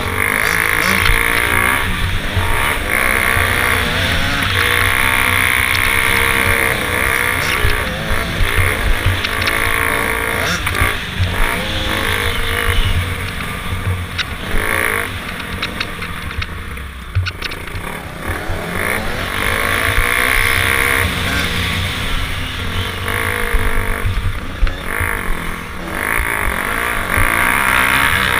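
Dirt bike engine running under load on a rough track, its pitch rising and falling again and again as the rider opens and closes the throttle. It eases off briefly about two-thirds of the way through.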